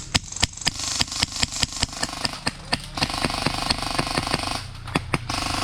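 Airsoft rifle firing a rapid string of single shots, about four to five a second, stopping about five seconds in.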